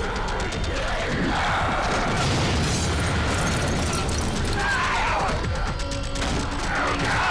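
Film soundtrack: a tense music score with mechanical clanking sound effects mixed in.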